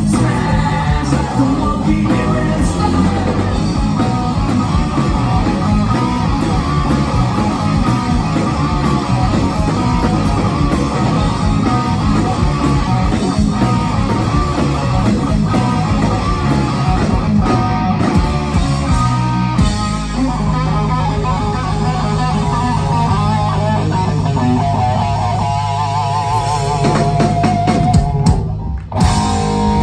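Rock band playing live with electric guitars, bass and drums. About two-thirds of the way through, the band holds a long final chord while a guitar plays a wavering, vibrato line over it, and the song ends with a last few hits near the close.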